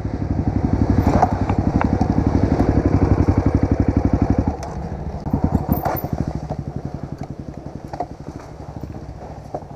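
Honda CRF 250F's single-cylinder four-stroke engine running steadily on throttle, then dropping about four and a half seconds in to a quieter, slower beat as the revs fall. A few sharp knocks sound over it.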